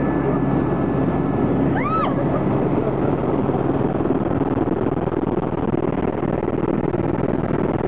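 Steady drone of a small aircraft's engine and airflow, heard inside the cabin in flight just after take-off. About two seconds in there is a brief high squeal that rises and falls.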